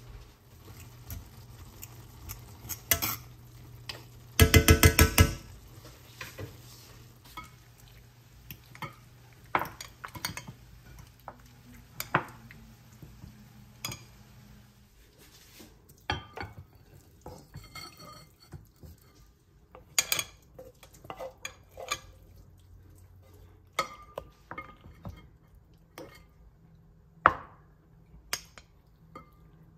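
Kitchen utensils clinking and scraping in scattered clicks: a metal fork working in a glass bowl and bowls being handled. A loud rapid clatter comes about four to six seconds in.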